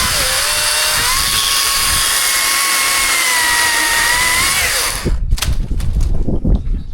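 Chainsaw running at high revs with a steady pitch, then the throttle is released and the pitch falls away about five seconds in. A few sharp knocks and clatter follow.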